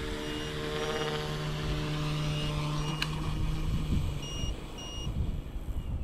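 Flite Wing 200 RC helicopter's electric motor and rotor whining steadily as it comes down to land, then fading away about four to five seconds in as it settles and spools down. Short electronic beeps repeat throughout, with one sharp click about three seconds in.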